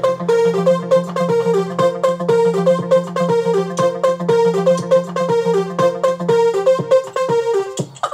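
Home-made electronic music track: a fast run of short synthesizer keyboard notes over a steady low drone. It cuts off near the end.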